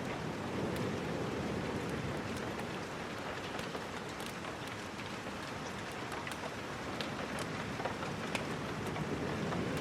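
Steady rain falling, with scattered short, sharp clicks sprinkled through it.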